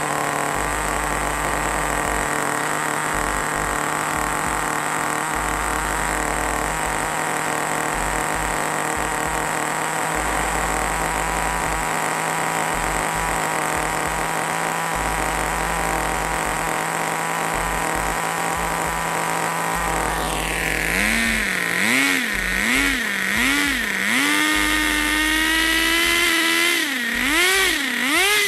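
Small two-stroke glow-plug nitro RC car engine running on WD-40 instead of nitro fuel. It idles steadily at first; about two-thirds of the way in it is revved in a string of quick rises and falls, roughly one a second, holds a higher speed for a few seconds, then is blipped again near the end.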